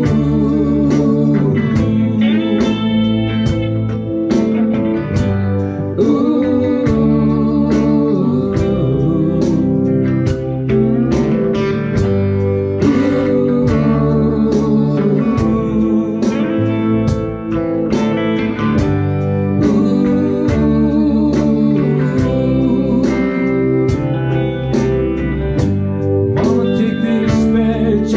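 Live band playing: electric guitars over a steady beat of about two hits a second.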